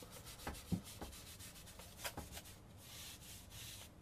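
Industrial wet wipe rubbing over the glass funnel of a CRT tube: faint wiping strokes with a few soft clicks.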